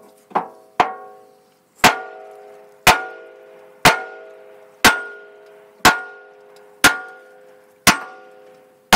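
Hammer blows on a steel gland nut wrench at a backhoe's hydraulic cylinder, each strike leaving an extremely loud metallic ring that fades over most of a second. Three come in quick succession, then about one a second.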